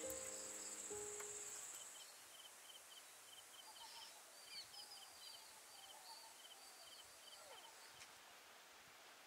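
Faint outdoor ambience: background music with held notes fades out in the first two seconds, leaving high chirping calls repeated rapidly in quick pairs, with scattered lower calls from other wildlife.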